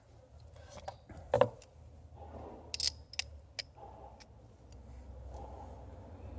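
Light metallic clicks and clinks of hand tools and a spark plug being handled, with a sharper clink a little under three seconds in.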